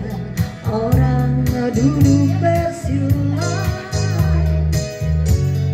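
A woman's voice singing a slow pop ballad into a microphone, with a Yamaha electronic keyboard playing chords and bass over a steady drum beat, heard through a PA speaker.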